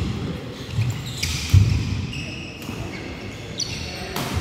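Dull thuds of players' shoes on a wooden badminton court, with brief shoe squeaks, then near the end a single sharp crack of a racket striking a nylon shuttlecock on the serve.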